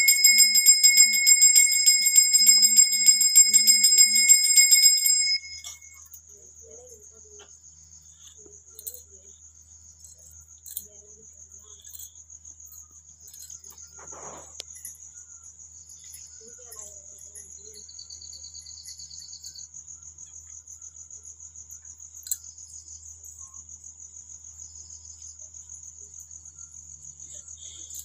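Metal puja hand bell rung rapidly during aarti, a bright fast ringing that stops abruptly about five seconds in. Then faint crickets chirp steadily.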